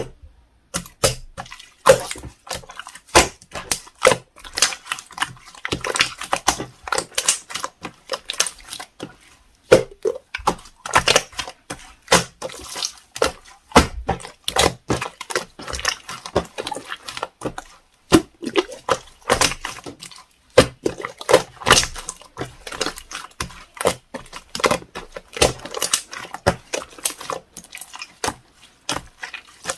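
Clear slime being squished, folded and poked by hand, giving a dense, irregular run of sticky wet clicks and small air-bubble pops.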